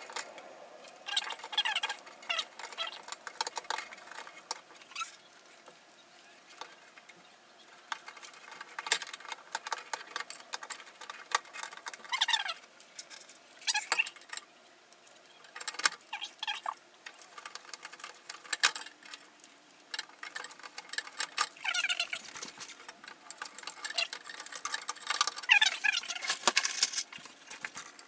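Handling noises from PC assembly in a computer case: irregular clicks, taps and light rattles of parts and cables, with a few short squeaks. The sounds come in clusters with quiet gaps, and the loudest run is near the end.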